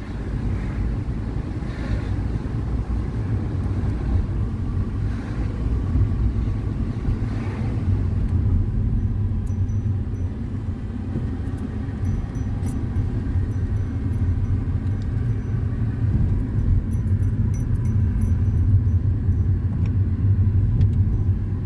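Car driving, heard from inside: a steady low rumble of engine and road noise.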